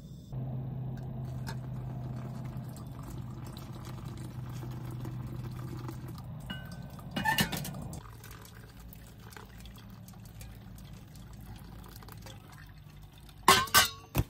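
Water poured from a metal kettle, a steady pour lasting about six seconds. Then a clank of the metal pot being handled, and a louder metallic clatter near the end.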